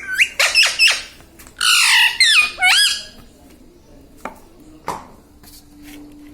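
Pet parrot giving a quick series of loud, shrill calls with sliding pitch in the first three seconds, followed by a couple of sharp clicks.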